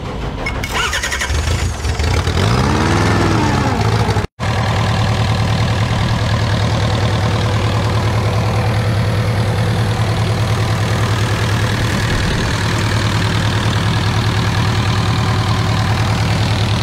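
Diesel engine running with a steady low, even throb. About three seconds in the pitch rises and falls once; the sound cuts out for a moment a little over four seconds in, then the engine runs on steadily.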